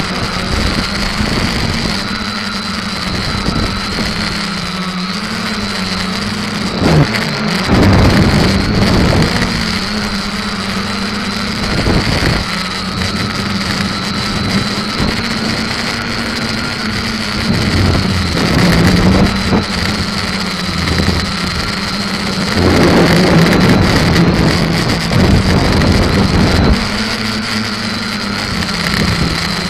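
SK450KK2 quadcopter's electric motors and propellers running steadily, heard from its onboard camera: a steady buzzing hum with a higher whine, the pitch shifting slightly with throttle. Several louder stretches of rushing noise come and go as it flies.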